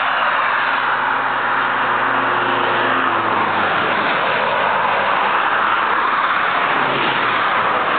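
Steady roar of road traffic, with a low engine hum that fades out a few seconds in.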